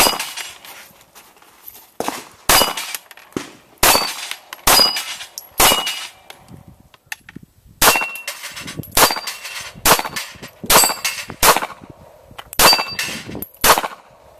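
About fifteen handgun shots, spaced roughly half a second to two seconds apart, fired at a rack of steel plate targets. Many shots are followed by a short, high metallic ring as a steel plate is hit and falls.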